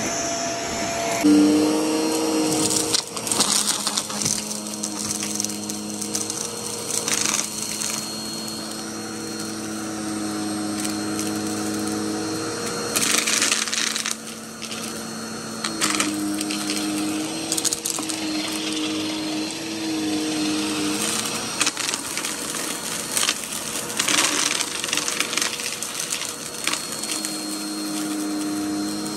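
Vacuum cleaner running with a steady motor whine while its brushroll crunches and crackles through dirt and debris on the floor.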